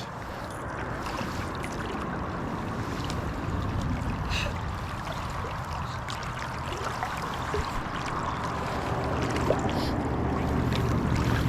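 Steady rushing noise of flowing water, with a low rumble growing louder near the end.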